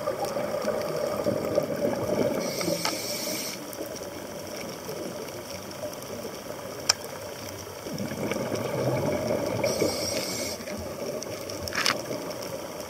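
Scuba diver breathing through a regulator underwater. Twice, about seven seconds apart, a hiss of about a second marks an inhalation, and a bubbling rumble of exhaled air runs between them, with scattered sharp clicks throughout.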